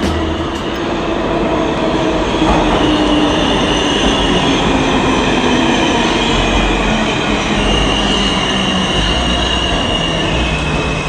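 New York City subway train running on its steel wheels with a steady loud rumble, and a high wheel squeal that sets in a couple of seconds in and holds, shifting pitch a few times.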